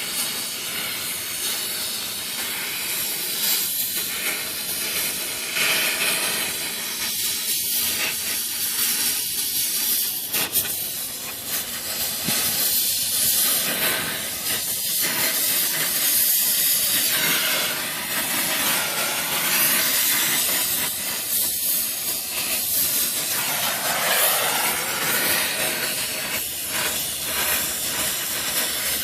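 Brazing torch flame hissing steadily while an air-conditioner line joint is heated for high-temperature soldering.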